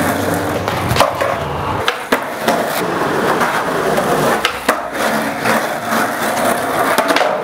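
Skateboard wheels rolling over rough concrete with a steady roll noise, broken by several sharp clacks of the board against the ground.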